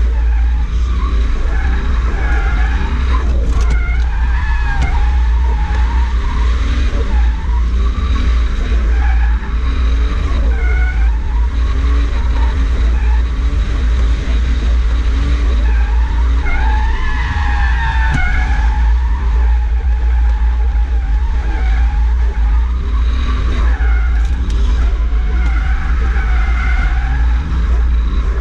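Toyota JZX100 drifting, heard from inside the cabin: the engine revs up and down under a constant heavy low rumble, and the tyres squeal in wavering, rising and falling tones as the car slides.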